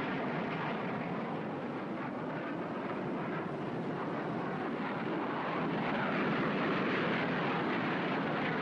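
Jet aircraft in flight: a steady jet engine rush that swells slightly louder in the last few seconds.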